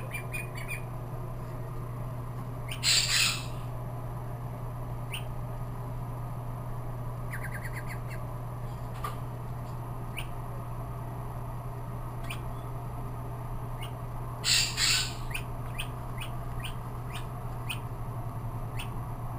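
A hand-held duckling giving a few short peeps and squawks. The loudest come about three seconds in and again about three-quarters of the way through, with faint scattered peeps between, over a steady low hum.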